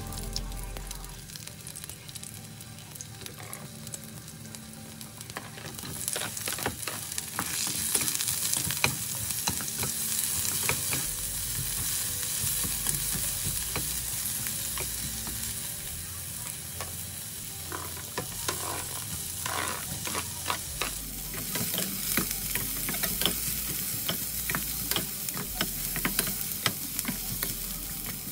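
Garlic, ginger and onion sizzling in hot oil in a nonstick wok, stirred with a spatula that clicks and scrapes against the pan. The sizzle grows louder about six seconds in.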